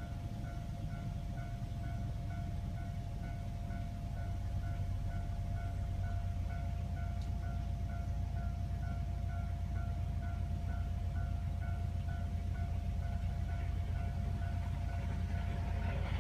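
Japanese level-crossing warning bell ringing, an electronic clang repeating about twice a second with a steady ringing tone beneath it, over a low steady rumble. A rush of noise starts to build near the end.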